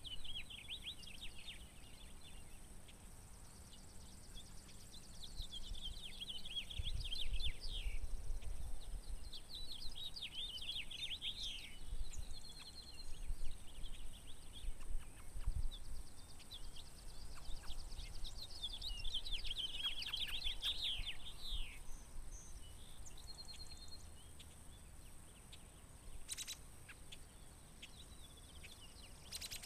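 Songbirds singing outdoors, about four phrases of quick high notes each lasting a second or two, a few seconds apart. Low wind rumble on the microphone through the middle stretch.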